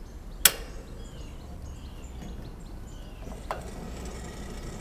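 A single sharp, loud click about half a second in, as a burner knob on a Napoleon gas grill is pushed and turned to spark the burner alight. A fainter click follows about three and a half seconds in as the grill lid is raised, with small bird chirps between them.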